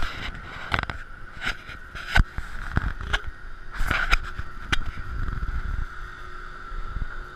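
Goliath steel roller coaster train rolling slowly through the station area, heard from the front car: a steady high-pitched hum under a low rumble, with irregular sharp clanks and knocks, most of them in the first five seconds.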